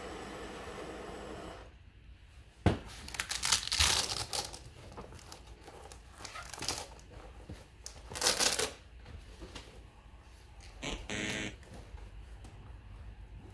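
A Marksman gas blowtorch hisses steadily and is shut off about a second and a half in. A sharp knock follows, then crinkling and rustling of a fire-resistant fabric document wallet being handled and opened, with a short rasp near the end.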